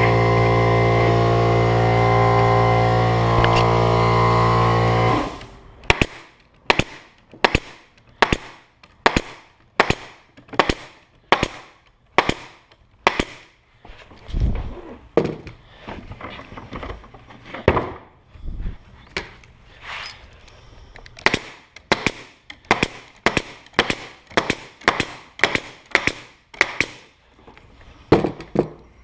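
An air compressor motor runs steadily, then cuts off abruptly about five seconds in. After that a pneumatic nailer fires sharp shots, roughly two a second with short pauses, nailing wooden beehive frame parts together.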